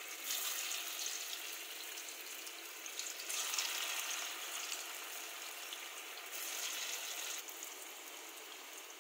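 Dhoka, squares of lentil-paste cake, deep-frying in hot refined oil in a kadai: a steady sizzle that swells each time more pieces are dropped in, just after the start, about three and a half seconds in and about six seconds in, then slowly settles.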